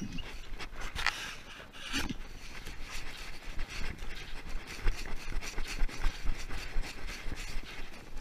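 A dog scratching and scraping: an irregular run of rasping scrapes with small knocks mixed in.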